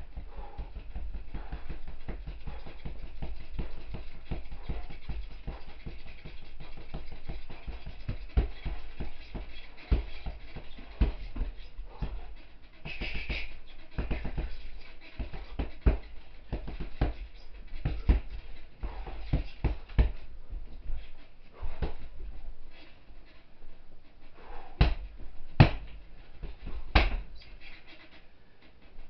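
Heavy punching bag being struck with wrapped fists: an irregular run of thuds and slaps, with a few harder strikes near the end, amid the puncher's hard breathing.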